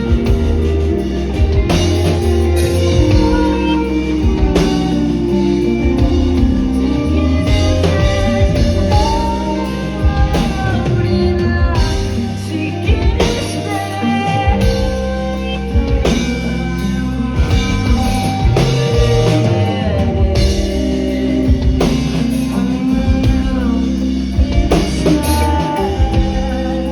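Rock song with a singing voice over drum kit, guitar and bass, playing without a break.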